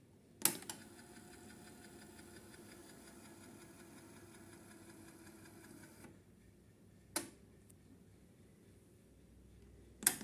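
Sansui D-77F cassette deck's transport mechanism: a sharp click of the controls engaging, then the transport whirring steadily for about five and a half seconds before it stops. Another click follows about seven seconds in, and a clatter of clicks comes near the end.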